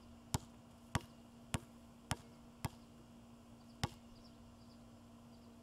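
A basketball dribbled on a hard outdoor court before a free throw: five sharp bounces about twice a second, then one more after a short pause.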